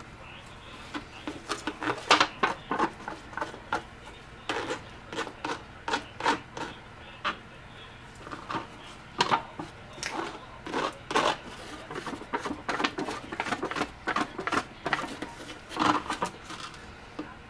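Epoxy bedding compound being stirred and scraped around a thin aluminum foil pie pan: many short, irregular scrapes and crackles of the foil, several a second.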